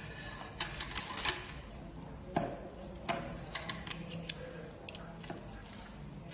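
Irregular small clicks and taps as a small electronics driver board is handled on a hard tabletop and the display panels' flex ribbon cables are pressed into its connectors. A few sharper clicks stand out in the first three seconds.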